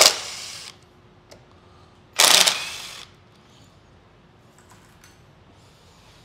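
Cordless power driver backing out case screws in two short bursts, one at the start and one about two seconds in, each under a second long and ending with a quick fade.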